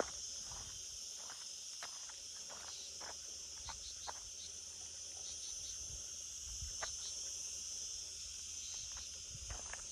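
Steady high-pitched insect chorus, like crickets, with a few scattered light footsteps.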